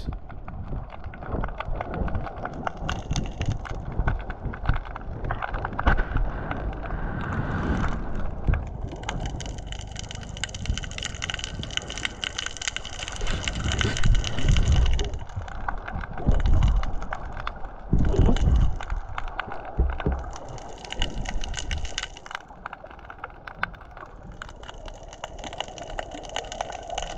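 Underwater sound picked up by a camera submerged among pier pilings: a dense, steady crackle of clicks, with a few heavy low thumps a little past the middle.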